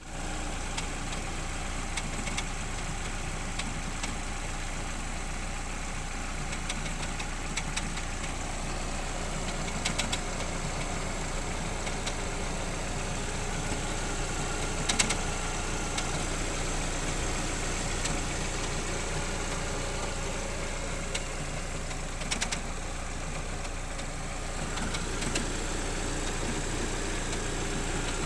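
BSE motorcycle engine idling steadily, with an occasional sharp sneezing pop, about three of them several seconds apart, the loudest about halfway through.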